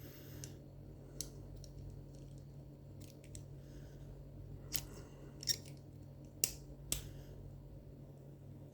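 Lock pick working inside a dimple-lock cylinder: a handful of small, sharp metallic clicks at irregular intervals as the pins are set, the strongest near the middle, over a faint steady hum.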